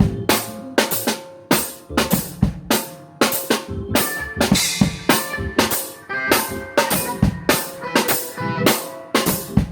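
A band playing live, led by a drum kit keeping a steady beat of about two hits a second, with held pitched notes from other instruments underneath.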